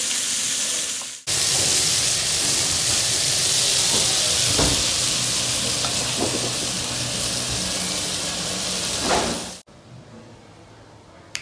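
Chunks of beef searing in a very hot Staub cast-iron cocotte, with a loud, steady sizzle as the meat is caramelised on all sides. A few faint knocks come as the pieces are turned with tongs. The sizzle cuts off abruptly near the end.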